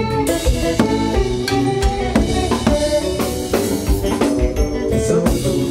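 Live konpa band playing, led by a drum kit keeping a steady beat, with electric guitar.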